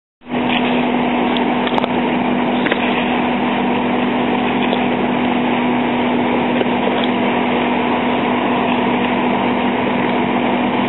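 An engine running steadily: a loud, even drone with a constant low hum, cutting in abruptly just after the start.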